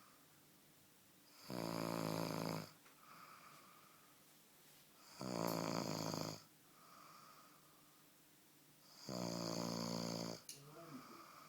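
Heavy snoring: three long, loud snores, each about a second long and coming about every four seconds, with soft breaths between them.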